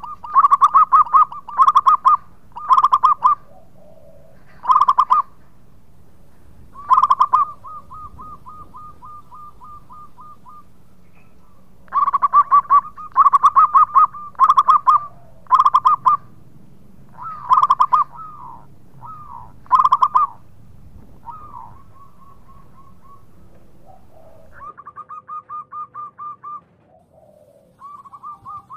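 Zebra dove (perkutut) cooing loudly: phrases of rapid staccato, trilling coos, repeated in groups with short pauses, a few ending in a long fading roll.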